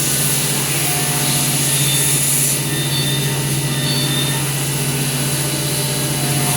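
CNC wood router production center running, its spindle and machine drives making a steady mechanical hum with a high whine that eases off about two and a half seconds in.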